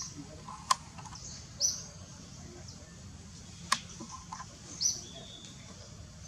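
Two short, high bird chirps, about three seconds apart, over a steady low background hum. Two sharp clicks, louder than the chirps, fall between them.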